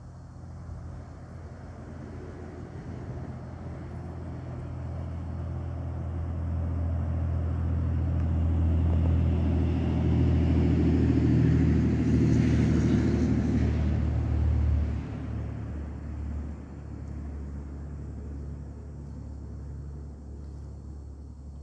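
A motor vehicle's engine rumbling past, growing louder for about ten seconds, then dropping off sharply about fifteen seconds in and carrying on as a lower, steady hum.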